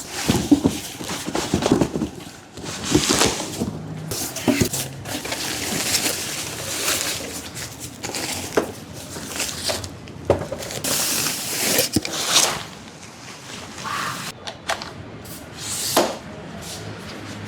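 Unboxing handling noise: cardboard and plastic packaging rubbing, rustling and scraping irregularly, with a few sharp clicks.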